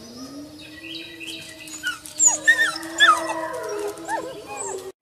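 Wolf pups howling together: one long low howl held steady, with several higher, short wavering howls and yips from the other pups in the second half. The sound cuts off suddenly near the end.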